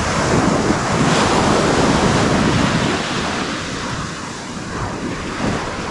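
Ocean surf breaking and washing up the beach, with wind buffeting the microphone. The wash swells about half a second in and eases off after about three seconds.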